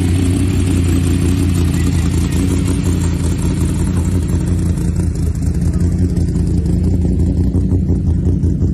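Formula Offroad buggy's engine running steadily at idle, loud and deep, with no revving.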